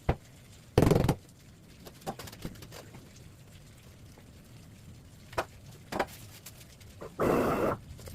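Scattered clicks and knocks from hands working with tools and parts, with a short loud burst about a second in and a longer noisy burst of about half a second near the end.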